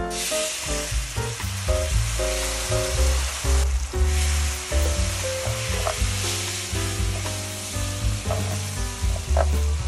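Food sizzling as it fries in hot oil in a pan. The sizzle comes in suddenly at the start, over background music.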